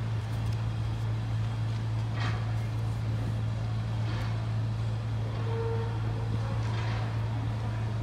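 Steady low engine drone, unchanging throughout, with a few faint brief higher-pitched calls or squeaks about two, four and seven seconds in.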